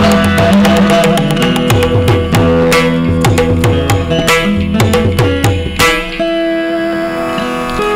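Carnatic veena and mridangam playing together: quick mridangam strokes with low gliding drum tones under plucked veena notes. About six seconds in the drumming stops and the veena's notes ring on alone.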